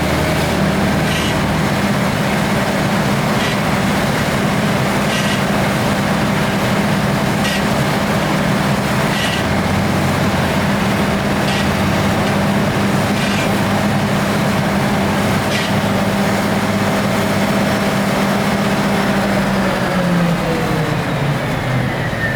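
Vermeer TG 7000 tub grinder's diesel engine running steadily at high speed, with a faint click about every two seconds. Near the end the engine slows and its pitch falls.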